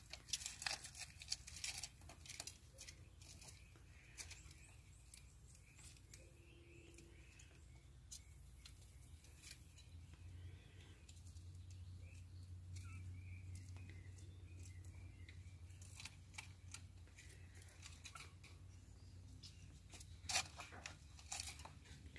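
Faint, scattered scratching and rustling of four-week-old kittens' paws and claws scrambling over a fleece blanket and bare floor, with a cluster of sharper clicks about the first two seconds and again near the end.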